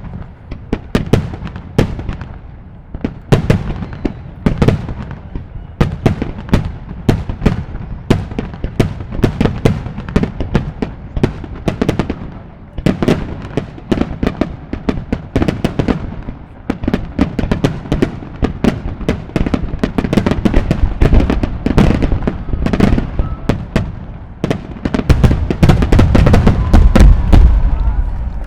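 Aerial fireworks shells bursting in quick succession, several sharp bangs a second, each trailing off in a rumble. They build to a heavier, almost continuous barrage in the last few seconds.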